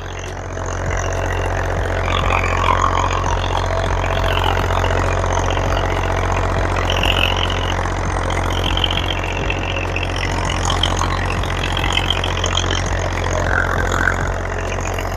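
Massey Ferguson 1035 DI tractor's three-cylinder diesel engine running steadily while pulling a 13-tine tiller through the soil, at an even pace and without labouring.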